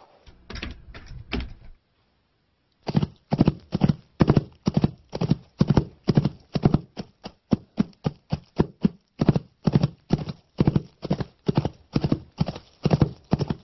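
Foley horse hoofbeats: a clip-clop of hooves performed by hand for a film soundtrack, starting about three seconds in as a steady, even run of strikes, several a second.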